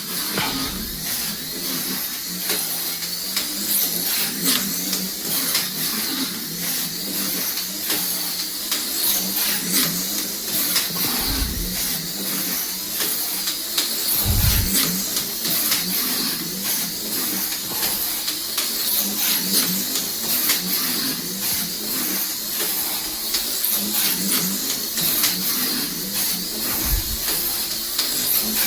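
Slot car with a Viper chassis running laps on a slot-car track: a steady high electric-motor whine with rattling hiss from the car on the track, and three dull low knocks along the way.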